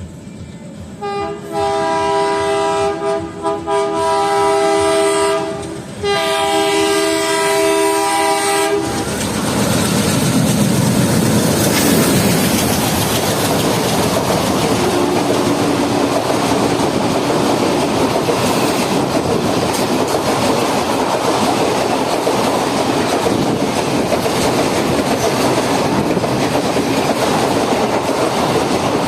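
Indian Railways locomotive air horn sounding for about eight seconds with two brief breaks, then a train passing at speed with a loud, steady rush of wheel and rail noise.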